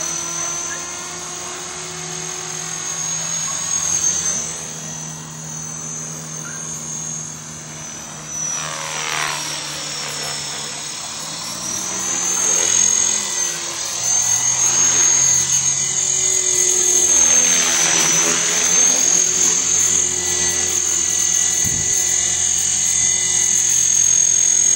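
450-size radio-controlled model helicopter flying, a continuous rotor and motor whine. The sound sweeps in pitch as it passes close, about nine seconds in and again near eighteen seconds, and it grows louder in the second half.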